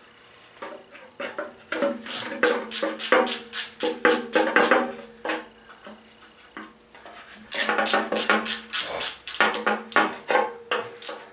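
Music with a quick, clicking percussive beat over a few held notes.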